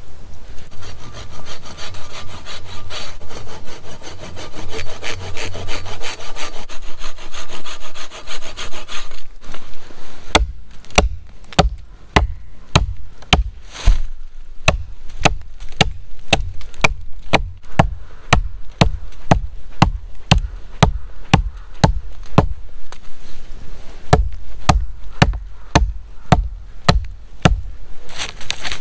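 Rapid rasping of a saw cutting wood for the first nine seconds or so. Then a hatchet chops into a log in sharp, separate blows, about two a second, pausing briefly before a quicker run near the end.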